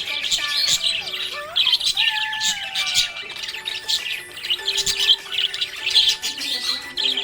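Budgerigars chirping and squawking in quick, busy runs of short calls, with held and gliding tones underneath.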